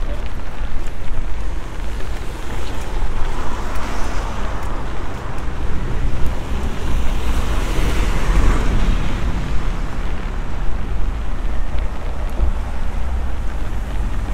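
Wet city street ambience: traffic passing with tyres hissing on rain-soaked tarmac, over a steady low rumble of wind on the microphone. One vehicle swells past and fades away about halfway through.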